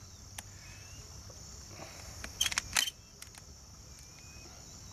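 12-gauge shotgun shells being thumbed into the magazine tube through the loading port. A cluster of sharp metallic clicks about two and a half seconds in, a shell snapping past the shell latch, with a single click near the start. Crickets chirp steadily throughout.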